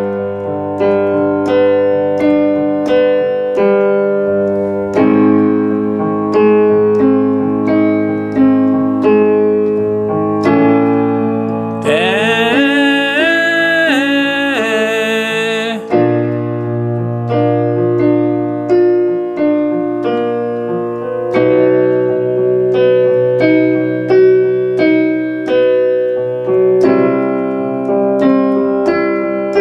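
Piano accompaniment for a chest-voice singing exercise: a short pattern of notes struck about twice a second, repeated and moved to new notes every five seconds or so. About twelve seconds in, a man's voice sings one phrase of the exercise for about four seconds, on an 'eh' with the tongue resting over the lips.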